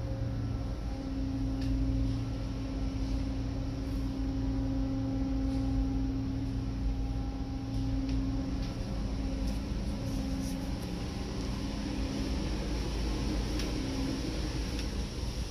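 Steady machinery drone of an offshore drilling rig: a low rumble with a few steady hum tones over it, with a few faint clicks.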